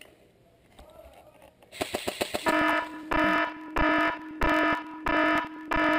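A short, rapid burst of clicks about two seconds in, then a loud electronic warning alarm: a buzzing beep that repeats about three times every two seconds, a sound effect laid over the footage with an "IDIOT WARNING" caption.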